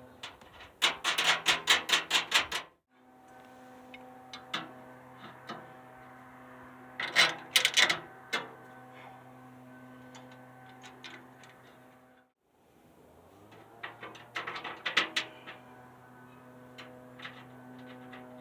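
Hand tools working metal hardware while nuts and bolts are fastened on a wheelbarrow's front brace bracket: three runs of sharp, quick clicks, about four a second, with the sound cutting out briefly twice.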